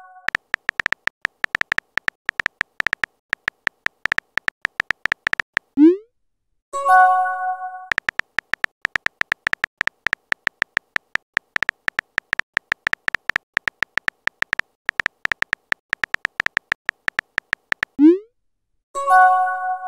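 Simulated phone keyboard clicks from a texting-story app, rapid and irregular, as a message is typed out. The clicks are broken twice, about six seconds in and again near the end, by a short rising bloop as the message is sent, followed a second later by a brief chime of several tones.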